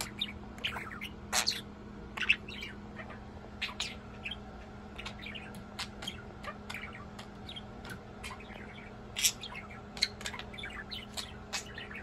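Budgerigars chirping and chattering in many quick, irregular short calls, a few of them louder.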